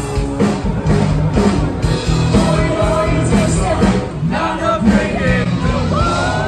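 Live rock band playing: electric guitars, bass and drums with a singer, steady and loud.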